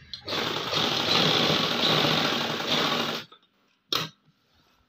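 Industrial sewing machine running a seam through the trouser hem for about three seconds, then stopping abruptly. A single sharp click follows about a second later.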